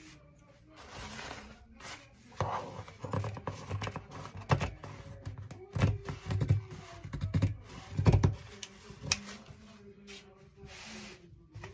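Fabric scissors cutting through ankara cotton print fabric on a cutting mat: an irregular run of sharp snips through the middle of the stretch, with the cloth rubbed and smoothed by hand before and after.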